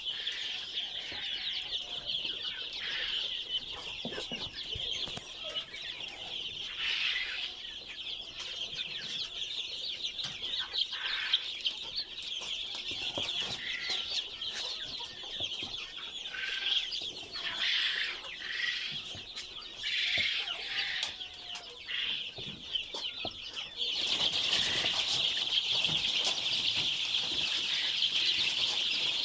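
A large flock of chickens calling all together: a constant chorus of high peeping with clucks mixed in. The chorus gets louder near the end.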